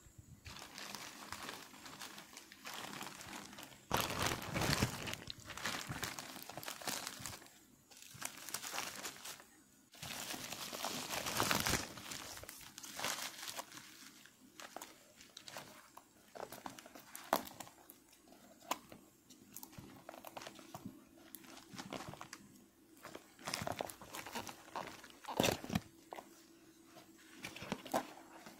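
Crinkling and rustling of a plastic courier mailer and bubble wrap being pulled open and handled, in irregular bursts, loudest about four and ten seconds in. Scattered sharp clicks and taps follow as the cardboard product box is handled and opened.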